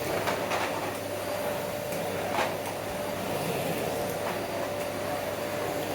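Small cylinder vacuum cleaner running steadily with a constant whine, its floor head pushed over carpet to suck up spilled salt, with a few brief rattles along the way.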